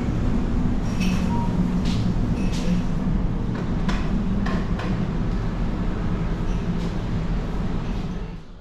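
Steady low drone of a car ferry's machinery heard inside a passenger deck, with scattered light clicks and clinks. The sound drops away sharply near the end.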